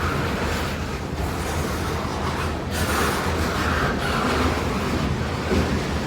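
CSX local freight train rolling through the yard: a steady low rumble with a continuous rushing noise over it.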